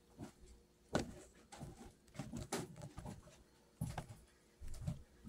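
Faint close-up eating and handling noises, with a few soft clicks spread through, the clearest about a second in.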